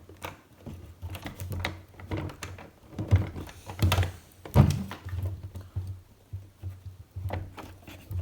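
Hard plastic panels of a Micro Machines Super Van City playset being pressed and forced: irregular clicks and knocks, with a few sharper knocks about three to four and a half seconds in. A panel is sticking and will not push in all the way.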